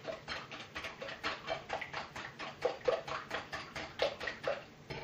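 Hand whisk beating eggs in a glass bowl: a quick, even run of clicking strokes of the wire whisk against the glass, about five or six a second.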